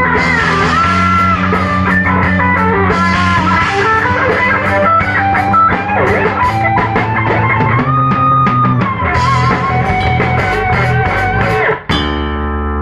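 Live rock band playing: electric guitar and drum kit, with long held lead notes that bend in pitch over a low sustained bass line and drum hits. Near the end the playing cuts off suddenly and held tones ring on.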